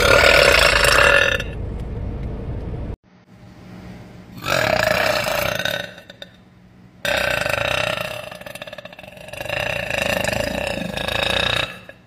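A woman burping loudly three times: a short burp at the start, another about four seconds in, and a long drawn-out one lasting several seconds near the end.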